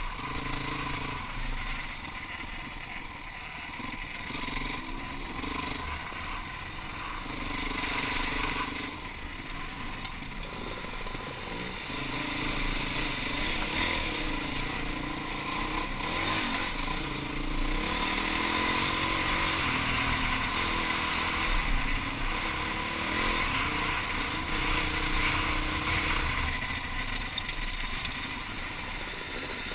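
Enduro dirt bike engine heard from the rider's helmet, its revs rising and falling continually as it is ridden over a rough, muddy track.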